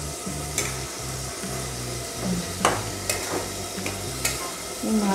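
A metal spatula stirs cauliflower and potato in a thick spice masala in a metal kadai. The masala sizzles as it is fried down (kosha). Scraping runs throughout, with a few sharp knocks of the spatula against the pan.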